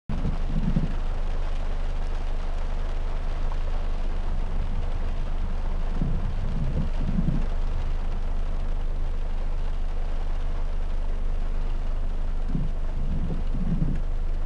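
Steady noise inside a car in heavy rain: engine and road rumble with rain on the bodywork. Clusters of brief low thuds come about a second in, around six seconds and near the end.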